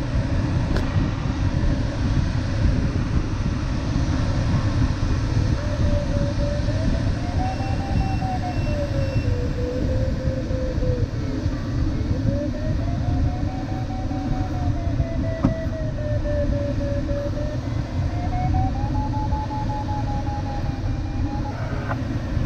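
Steady airflow noise inside an LS7-WL glider's cockpit in flight. From about five seconds in, the audio variometer's tone sounds over it, slowly rising and falling in pitch as the climb rate changes.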